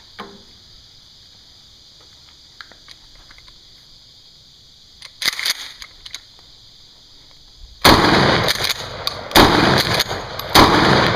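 Mossberg 590A1 pump-action shotgun with a 14-inch barrel firing three loud shots about a second and a half apart, starting near the end.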